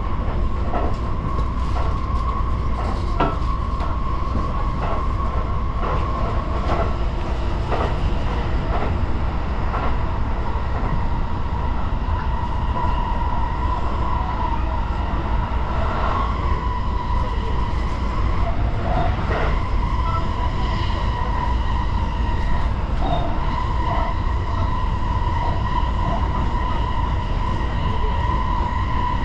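Electric commuter train running at speed, heard from inside the front car: a steady rumble with a high steady whine over it, and scattered clicks as the wheels pass over the track.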